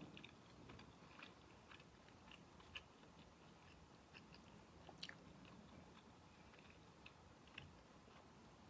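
Faint close-up chewing of food, with scattered small mouth clicks and a few sharper ticks.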